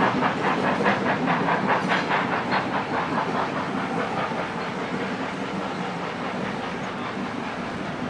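Steam locomotive working, with a quick, even beat of about five strokes a second that fades away about halfway through, over a steady hiss of steam.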